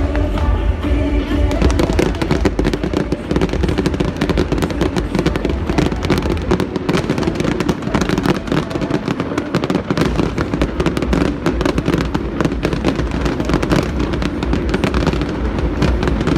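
Fireworks bursting and crackling in a rapid, dense barrage over loud background music.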